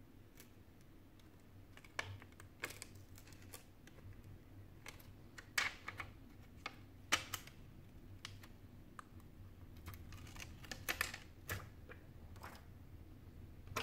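Irregular small clicks and taps of fingers handling a Sony Xperia Z5 Compact's metal midframe, with plastic protective film peeled off it and small metal parts fitted into the frame. The loudest clicks come a little before halfway and in a quick cluster about three quarters of the way in.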